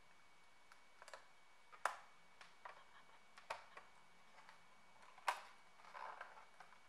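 Faint, scattered plastic clicks and ticks as a small precision screwdriver presses and pries at the retaining latches along the top edge of a Dell Inspiron laptop keyboard, with the sharpest click a little after five seconds in.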